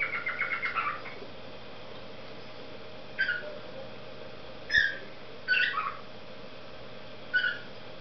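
Adult male grey cockatiel singing. It opens with a quick run of short whistled notes in the first second, then gives four separate short whistles spread over the rest, each sliding down in pitch.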